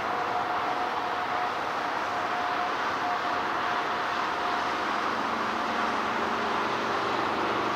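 Boeing 747-8F's four GEnx-2B turbofan engines heard as a steady rushing noise while the jet rolls along the runway after landing. A thin whine in the first half fades out, and lower hums come in past the middle.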